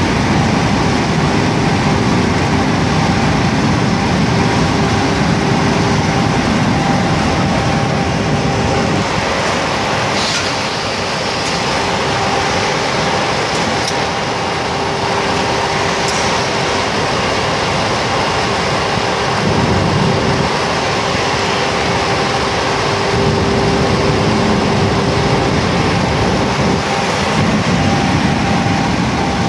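Automotive-glass diamond edge-grinding CNC machine running: a loud, steady machine noise with a sustained humming tone from the spindle drive, and a few brief clicks.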